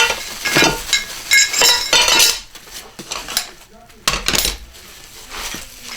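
Metal CNC kit parts clinking and clattering against each other as they are handled and unpacked, with a brief metallic ring. The clicks are thickest in the first two seconds, and another burst comes about four seconds in.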